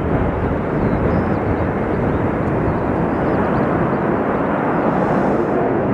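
Loud, steady jet engine noise from a Sukhoi Su-35 fighter taking off and climbing away.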